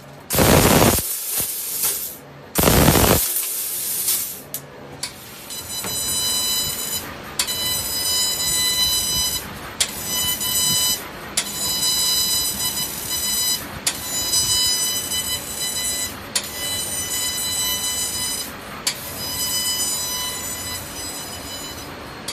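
A 1000-watt fiber laser rotary tube cutting machine at work. It opens with three loud bursts of hissing, then settles into a high, multi-toned motor whine that starts and stops about eight times, each run lasting a second and a half to two seconds, over a steady hiss.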